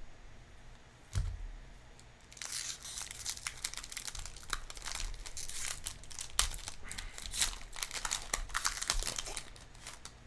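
A soft thump about a second in, then a Magic: The Gathering booster pack's foil wrapper being torn open and crinkled for several seconds.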